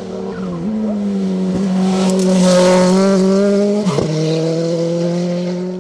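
A GT race car's engine held at high revs as the car drives through a bend and past. The note is loudest in the middle of the pass and dips briefly about half a second in, at about a second and a half, and again at about four seconds.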